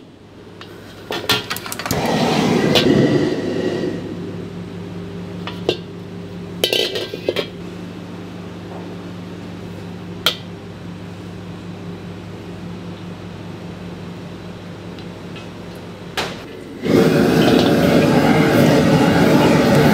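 Metal clinks and knocks of a ladle and carbon-steel wok on a gas range, over a steady kitchen hum. A loud steady rushing noise starts about three seconds before the end.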